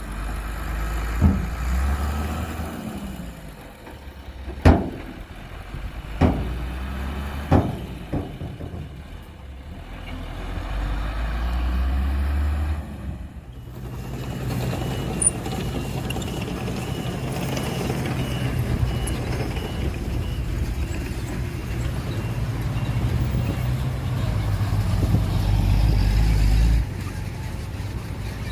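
Diesel engines of heavy earthmoving machinery running, with four sharp clanks in the first half. The engine sound changes abruptly about halfway through, then runs steadily.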